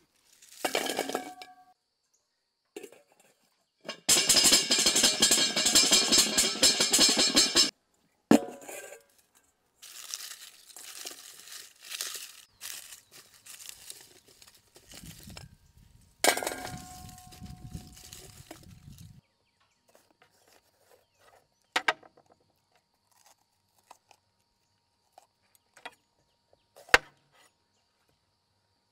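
A stainless steel bowl clanks and rings briefly, then garlic heads rattle loudly for about four seconds, shaken inside stainless steel bowls to knock the cloves loose from their skins. Papery garlic skins crinkle as the peeled cloves are handled, another bowl clanks, and a few sharp knife taps sound on a wooden cutting board near the end.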